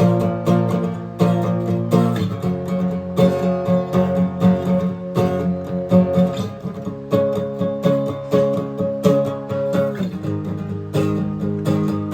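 Acoustic guitar music: strummed chords in a steady rhythm, with the chord changing every few seconds.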